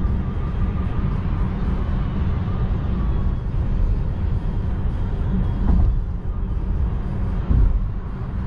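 Steady tyre and wind noise inside the cabin of a Volkswagen ID.3 electric car cruising at about 95 km/h, a low rumble with no engine note. Two dull thumps come about six and seven and a half seconds in.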